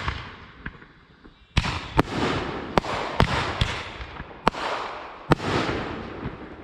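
Consumer fireworks going off: after the fading tail of one bang, a volley of sharp bangs starts about a second and a half in, coming roughly every half second to a second, each followed by a fading crackle and hiss.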